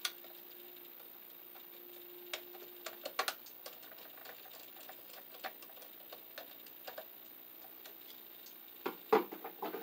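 Small scattered clicks and ticks of a screwdriver and wire on a wall outlet as a bare copper ground wire is looped around the green ground screw and tightened, with a quick cluster of clicks near the end. A faint steady hum runs under the first three seconds.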